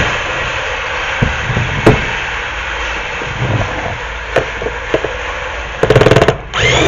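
Phillips screws being backed out of the instrument cluster's plastic housing with a screwdriver: a few light clicks, then a brief rapid rattling burst near the end, over a steady background hiss.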